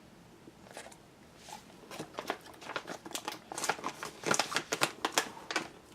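A dog chewing crunchy treats: quiet at first, then a quick, irregular run of crunches starting about two seconds in and getting louder towards the end.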